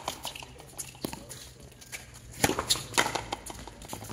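Frontenis rally: sharp smacks of the rubber ball off the rackets and the fronton wall, the loudest cluster about two and a half seconds in, with players' footsteps on the court floor.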